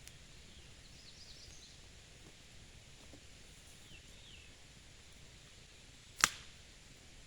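Faint outdoor ambience with a few soft, quick bird chirps, then one sharp click about six seconds in, the loudest sound here.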